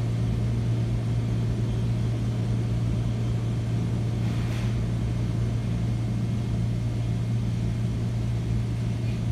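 Steady low mechanical hum at an even level, with a brief soft rustle about halfway through.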